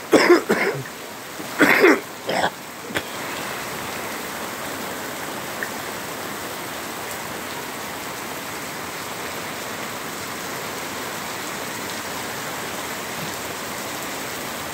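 Rain falling steadily on pavement, a wet road and plants, an even hiss. A man's voice makes a few short sounds in the first three seconds.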